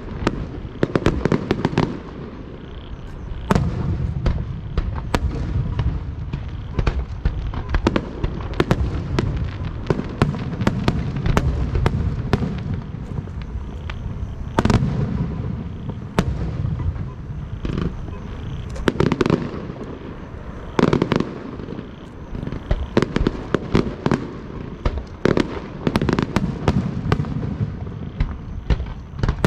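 Aerial fireworks show: shells bursting overhead in a continuous run of sharp cracks and booms, several in quick succession at times, over a steady low rumble of echo.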